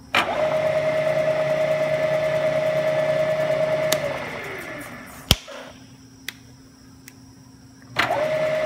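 Bridgeport milling head's spindle motor starting at the push of a button and running with a steady whine. About four seconds in it is switched off and winds down with a falling pitch. There is a sharp click about five seconds in, and the spindle starts again near the end.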